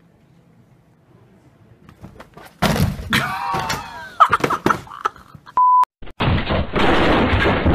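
Near quiet for the first couple of seconds. Then thuds and commotion as a person falls onto a couch, a short electronic beep, and a loud crash and clatter as a shop display topples over.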